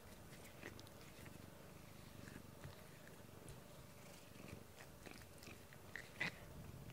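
Siamese-type cat purring close to the microphone, a soft steady low rumble. A few small clicks are heard, the loudest about six seconds in.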